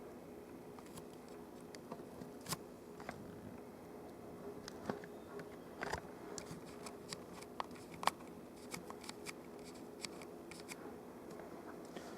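Small irregular clicks and taps of a screwdriver and fingers working on a laptop's screen assembly, the sharpest about two-thirds of the way in, over a faint steady hum.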